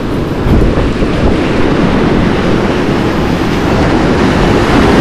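Surf breaking and washing up over the shore, with wind noise on the microphone.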